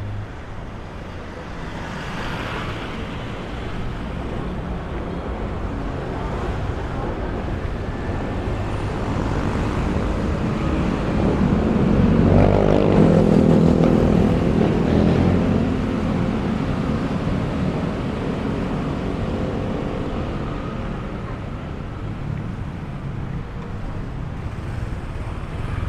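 Street traffic, with a motor vehicle's engine growing louder, passing close about halfway through, then fading away.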